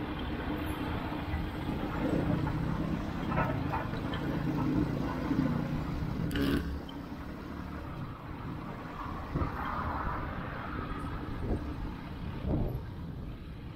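Busy road traffic: a nearby vehicle's engine runs with a steady low hum, then falls away about halfway through with a short knock, leaving quieter traffic noise.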